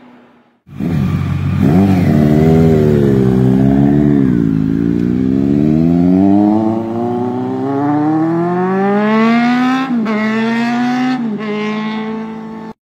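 High-displacement motorcycle engine revving and accelerating. The pitch rises and falls at first, then climbs steadily for several seconds and drops sharply twice near the end as it shifts up. It starts suddenly and cuts off abruptly.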